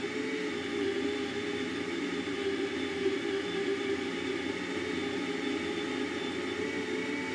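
Baratza electric burr grinder running steadily, grinding coffee beans into a 58 mm portafilter, with a whir holding several fixed tones.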